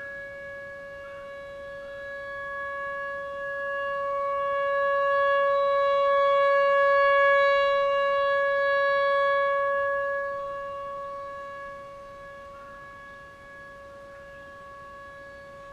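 Whelen WPS-4004 electronic siren sounding a steady, unwavering alert tone during a test. The tone swells to a peak about seven seconds in and fades again as the rotating speaker head turns toward and then away.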